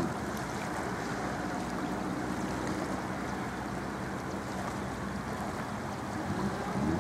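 Muddy floodwater rushing steadily down an eroded earth channel: a flash-flood mudflow after heavy rain.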